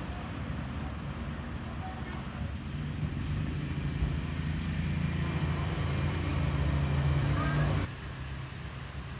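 Steady low motor hum, like an engine running, that cuts off abruptly near the end.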